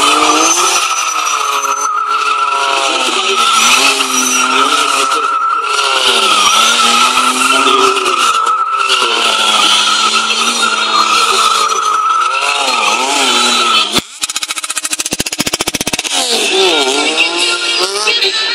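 Triumph stunt motorcycle's engine revving up and down again and again as its rear tyre squeals and skids on tarmac while it circles tightly. About three-quarters of the way through there is a sharp knock and a short buzzing rattle, after which the revving resumes.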